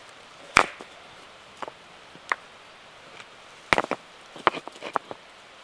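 Flat stones clacking against other stones as they are set down by hand, in separate sharp knocks. The two loudest come about half a second in and just before four seconds, with smaller scrapes and clicks between and a run of lighter taps and rustles near the end as dry grass is handled among the stones.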